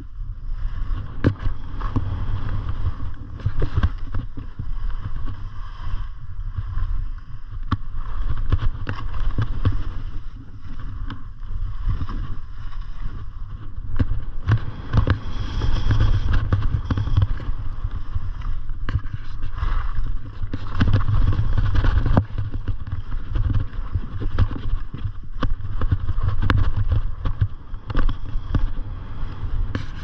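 Skis scraping and hissing over chopped-up snow during a downhill run, with a low rumble of wind buffeting the camera microphone and many sharp knocks scattered throughout.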